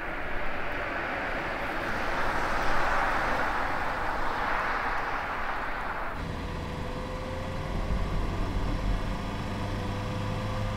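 Car driving along a road: a rushing noise of tyres and engine grows louder, then cuts off sharply about six seconds in. A steadier, lower engine drone follows.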